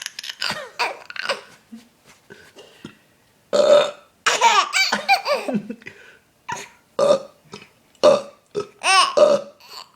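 A man burping loudly several times, each burp answered by a baby's high-pitched laughter.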